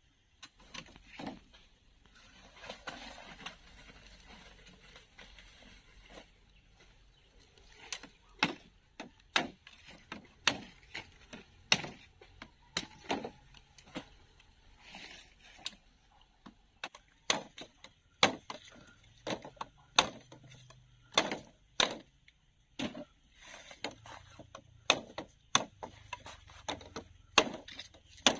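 Rustling for a few seconds, then a blade chopping in sharp, irregular strikes, about one or two a second.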